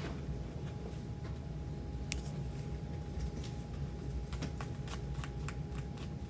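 Scattered soft clicks and rustles of something being handled at the pulpit while the scripture passage is looked up, over a low room rumble and a faint steady hum.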